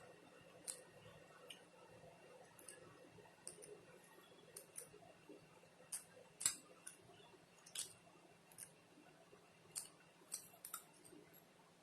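Faint eating sounds as someone eats noodles fast: irregular small sharp clicks and ticks, roughly one or two a second, over a quiet room.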